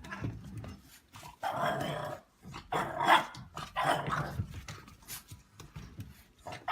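A dog vocalizing in several short bursts, with scattered clicks and knocks around it.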